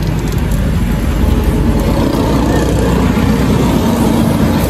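Gas torch flame burning steadily against a car's exhaust pipe, a loud low rumble that does not change, as the pipe is heated to cut off the silencer.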